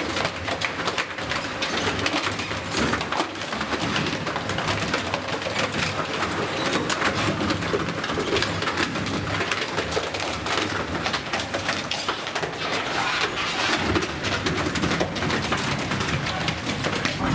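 Industrial shredder's rotary cutters crushing and tearing plastic football helmets, a continuous din of crackling with many sharp cracks and snaps as the shells and face masks break apart.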